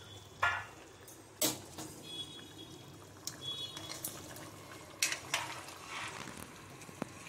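A metal ladle stirs a hot, bubbling chicken and chickpea curry in a metal kadhai: wet slopping with a few sharp clinks of the ladle against the pan.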